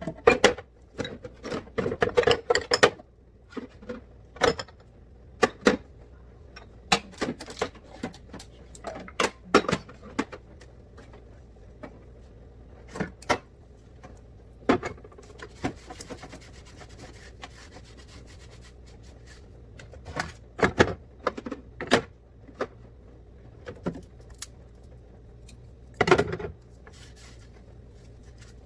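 Irregular knocks, clatters and rubbing of containers and food items being handled, slid and set down while a refrigerator is organized, with a few louder bunches of clatter.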